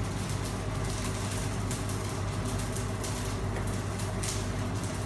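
A steady low hum, like a motor or electrical hum, runs throughout. Faint light scrapes and clinks of a ladle in a metal cooking pot sound over it as sauce is ladled out.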